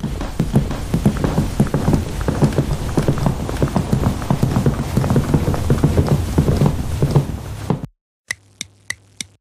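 Footsteps of several people walking together, a dense run of irregular steps that stops suddenly about eight seconds in. Then a clock ticking steadily, about three ticks a second.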